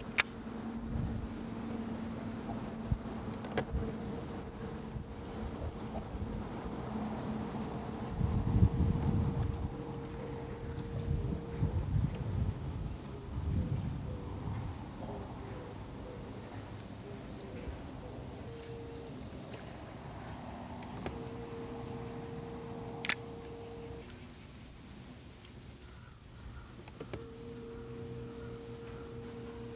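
A chorus of insects trilling in one steady, high, unbroken buzz. A faint low hum comes and goes, with a few low rumbles in the first half and a single sharp click about 23 seconds in.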